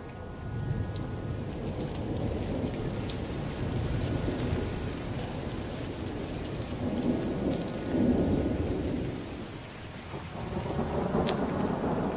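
Thunderstorm: steady heavy rain with rolling thunder, the rumble swelling about eight seconds in and again near the end.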